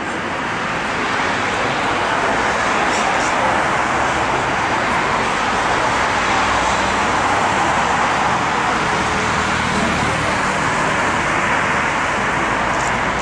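Jet engine noise from a Boeing 777-300ER's twin GE90-115B turbofans on the runway for takeoff: a steady rushing noise that grows louder about a second in and then holds.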